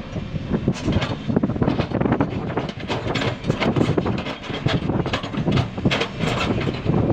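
Crawler excavator on the move, its diesel engine running under a continuous, irregular clatter of steel track links.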